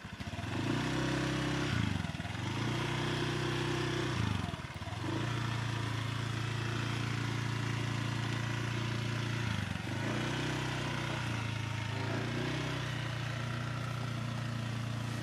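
Small motor scooter engine running. Its pitch drops and picks up again several times as the throttle is eased and opened, and in between it holds steady while riding along.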